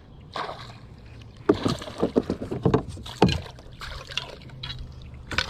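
Irregular splashes and knocks on a kayak as a hooked pickerel is brought in, loudest about one and a half seconds in.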